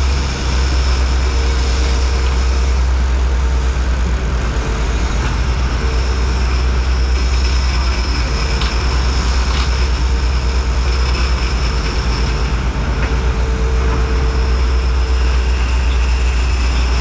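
Sportfishing boat's engines running steadily under way, a constant low drone with a faint steady tone above it, mixed with the rush of churning wake water.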